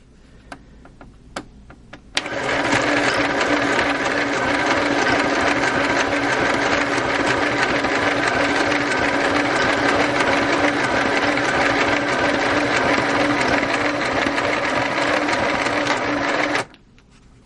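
Singer Pixie Craft mini sewing machine, running on batteries, sewing a wide zigzag stitch. A few light clicks come first, then the motor and needle run steadily for about fourteen seconds and stop suddenly.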